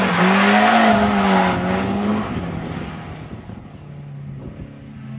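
Drift car passing close, engine revving with a wavering note while the tyres squeal in a slide. It is loudest for the first two seconds, then fades as the car moves away.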